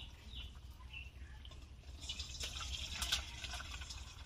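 Thin fish curry (jhol) sloshing and dripping in the pan, with small clicks and splashes starting about two seconds in, over a steady low hum.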